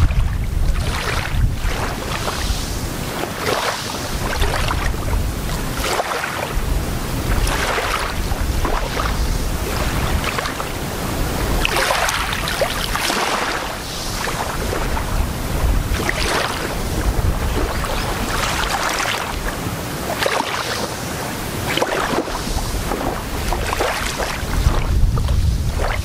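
Small, gentle waves lapping and washing up on a sandy beach, a soft hiss of surf coming in every couple of seconds. Wind rumbles on the microphone underneath, strongest at the start and near the end.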